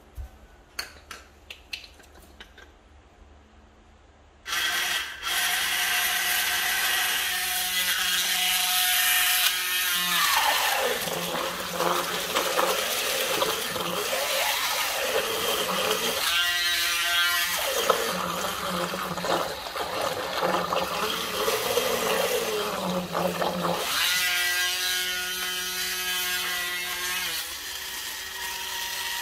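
Small battery-powered electric motor in a homemade PVC-pipe boat thruster starts about four and a half seconds in, after a few clicks, and runs with its propeller churning and spraying water in a basin. Its whine rises and falls in pitch several times.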